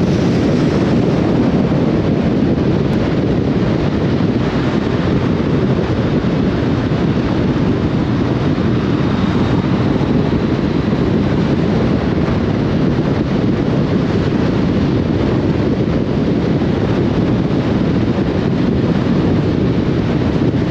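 Steady wind rush buffeting the microphone of a moving motorcycle, over the low noise of the bike and the road.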